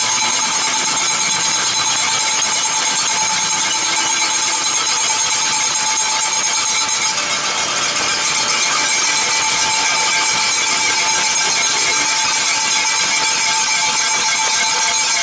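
Arena crowd applauding and cheering, steady and loud.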